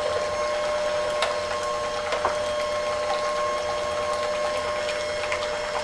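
Electric hand mixer running steadily, its beaters whisking a thin liquid custard mixture of egg yolks and milk in a glass bowl, with a constant motor whine and a few light ticks.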